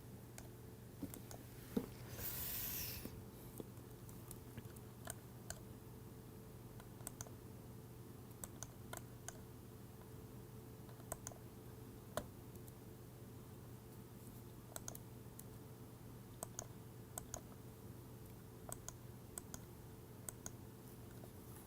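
Faint, scattered clicks of a computer mouse and keyboard as CAD software is worked, a few a second at most with gaps between, over a steady low electrical hum. A short hiss about two seconds in.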